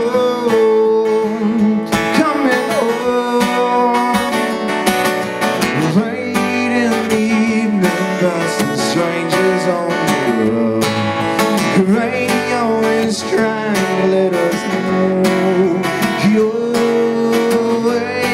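Acoustic guitar strummed steadily as song accompaniment, with a wordless vocal line wavering over it.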